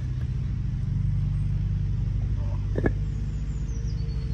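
An engine running steadily with a low, even rumble, and a single sharp knock about three seconds in.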